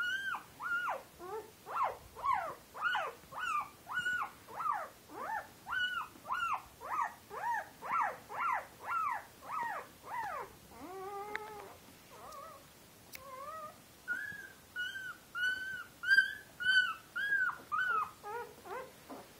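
Newborn Central Asian Shepherd (Alabai) puppies whimpering and squealing while nursing: short, high-pitched cries about two a second, a lower, longer cry about halfway through, a short pause, then another run of high cries.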